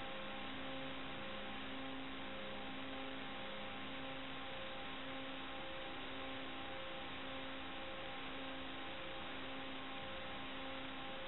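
Steady hiss with two faint low tones that take turns in a slow repeating pattern, switching about every half second.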